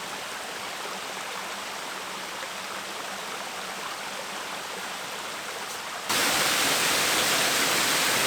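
Waterfall's rushing water, a steady hiss; about six seconds in it suddenly becomes louder and brighter and stays that way.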